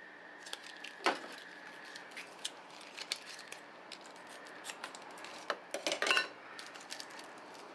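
Small handling noises from plastic condiment packets and scissors: scattered clicks and crinkles as a packet is snipped open, with a louder cluster around six seconds as it is squeezed out against a ceramic mug.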